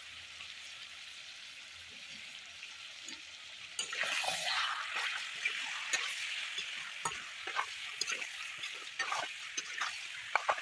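Pork sizzling in hot oil in a black wok. It grows louder about four seconds in, when a metal spatula starts stirring the meat, with scattered scrapes and knocks of the spatula against the pan.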